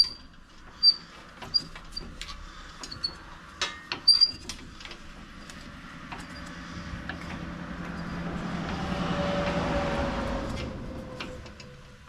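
Sharp metallic clinks and taps of hand tools on steel, a few ringing briefly, over the first few seconds. Then a passing vehicle's road noise swells to a peak and fades, with a falling tone.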